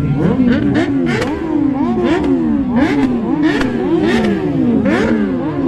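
Several superbike engines being revved in quick, overlapping throttle blips, each one rising sharply in pitch and falling back, with short sharp pops between them.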